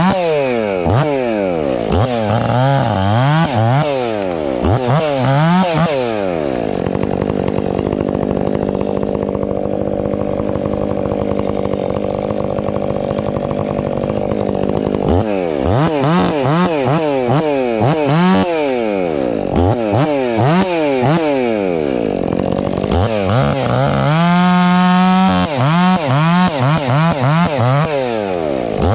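Stihl 500i two-stroke chainsaw cutting ponderosa pine, its engine pitch dipping and rising about once a second. About a quarter of the way in it holds a steady pitch for several seconds, then goes back to dipping and rising, with one climb to a high held rev near the end.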